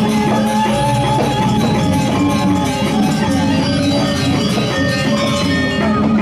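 Balinese gamelan accompanying a Telek masked dance: bronze metallophones ring densely over drums in a steady, unbroken passage.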